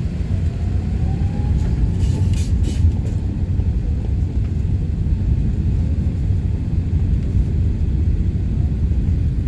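Airbus A380-800 cabin noise heard from a passenger seat: a steady low rumble of the airliner's engines, with a few brief hissy clicks about two to three seconds in.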